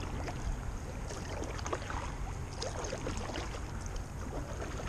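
Kayak paddling: a double-bladed paddle dipping and pulling, with water splashing and dripping off the blades in many small irregular splashes, over a low rumble of wind on the microphone.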